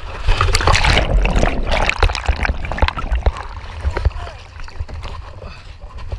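A sit-on-top kayak capsizing: loud splashing and churning of water for about the first two seconds, then scattered knocks and rustling as the chest-mounted camera rubs against the life jacket.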